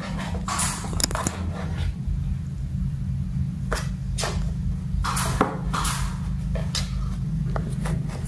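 A kitten scuffling in a cardboard box makes a series of short, scratchy rustles and scrapes against the cardboard, heard over a steady low hum.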